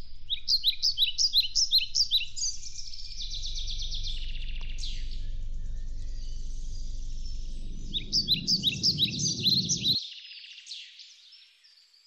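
White wagtail singing: quick runs of sharp, repeated chirps, about four or five a second, in two spells with a gap in the middle. A low rumbling noise joins near the end, and all of it cuts off suddenly about ten seconds in.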